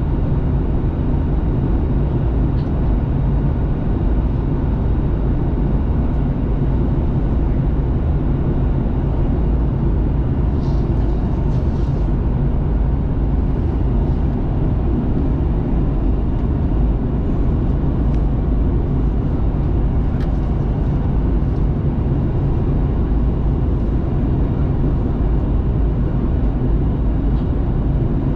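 Steady cabin noise of a Boeing 737-800 in flight on approach, heard from inside the cabin: a constant low rush of airflow and engine hum with no change in level.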